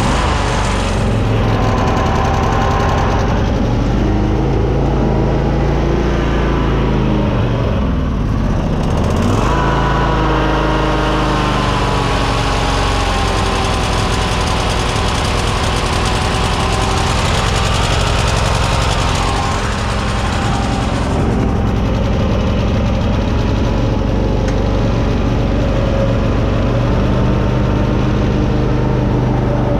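Cub Cadet zero-turn mower's Kohler 23 hp engine running steadily; about eight seconds in its speed sags, then picks back up a second or so later, as the fuel system reprimes after cleaning.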